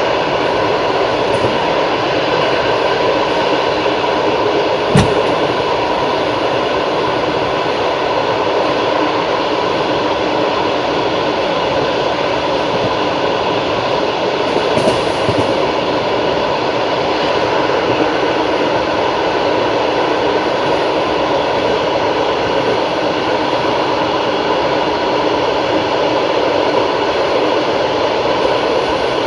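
Passenger train running at speed: the steady rumble and rattle of its wheels on the rails, with a single sharp knock about five seconds in.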